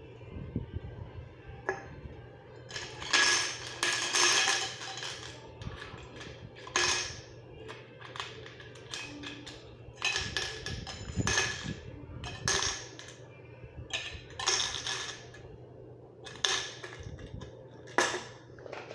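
Nails dropped into empty metal cans, clinking and rattling in a series of irregular bursts as the cans are filled to serve as noisemakers.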